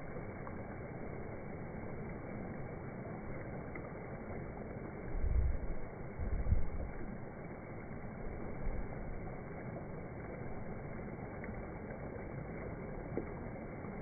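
Waterfall: the steady rush of water streaming over a rock lip and dropping away. Two short bursts of low rumble come about five and six and a half seconds in.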